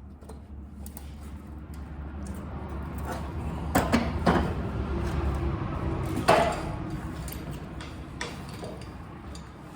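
Small metallic clicks and knocks of hand work on the old sheet-metal heater housing as a small screw is worked into its hole, a couple of them sharp near the middle and the loudest a little after six seconds. Under them a low steady hum swells and then fades.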